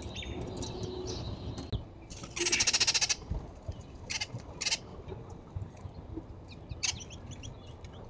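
Birds calling: a loud, harsh call with a fast rattling texture lasting nearly a second, about two and a half seconds in, then a few short, sharp calls, with faint chirps early on.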